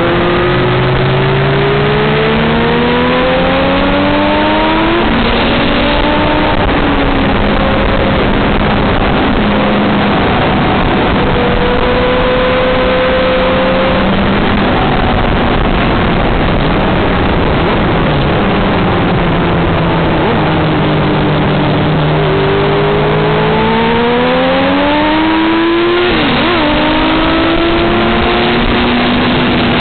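Motorcycle engine heard on the move from an onboard camera, under heavy wind noise on the microphone. The engine note climbs under acceleration and drops at an upshift about five seconds in, holds, falls away as the bike slows, then climbs again and shifts once more near the end.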